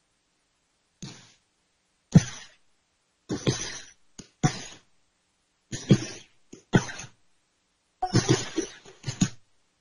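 Short called counts alternating with the slaps and thuds of children falling backward onto tatami mats in ushiro ukemi breakfalls. The bursts repeat about every second or so, and the loudest comes about two seconds in.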